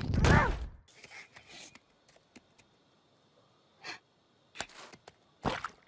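Baby Groot's short gasp right at the start, its pitch rising and falling. After it, quiet with a few soft clicks and rustles.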